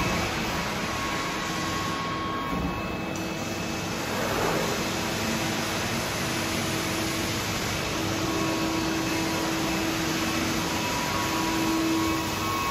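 Steady machine hum with a few held tones, from running workshop machinery, likely a press brake's hydraulic unit, with a brief swell about four and a half seconds in.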